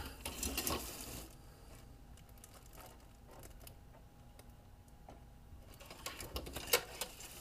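Light handling noise of a plastic RC crawler body and its rear bumper being turned by hand: soft rustles for about the first second, then a quiet stretch, then a cluster of short clicks near the end.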